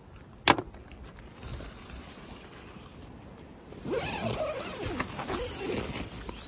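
A single sharp click about half a second in, then from about four seconds in the rasping run of a tent door zip being pulled, with the fabric rustling.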